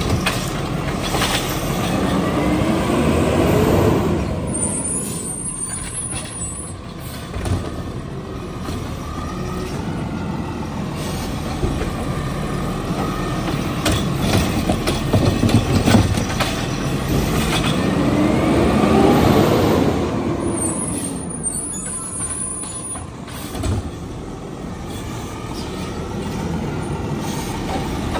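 A Peterbilt 520 garbage truck's diesel engine revving twice to drive the hydraulics of its McNeilus Autoreach side-loading arm, each time with a rising whine as a cart is lifted and tipped into the hopper. Each lift is followed by a hiss of air and a few clunks from the arm and cart.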